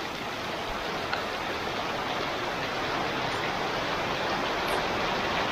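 Heavy tropical rain pouring down without let-up: a steady, dense rushing hiss.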